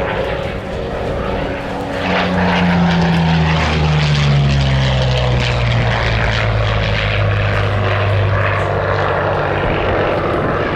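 Curtiss P-40 Kittyhawk's Allison V-12 engine on a fast pass. It swells about two seconds in, then its drone falls steadily in pitch as the fighter goes by.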